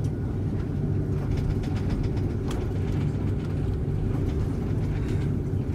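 Airbus A330-200 passenger cabin noise while the airliner taxis: a steady low engine hum and rumble, with a few faint clicks.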